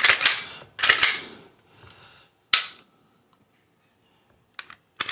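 Glock-pattern pistol with a 3D-printed frame being worked by hand: the slide is racked back and let go with sharp clacks at the start and again about a second in, a single sharp click about two and a half seconds in, and a few lighter clicks near the end as the slide is handled.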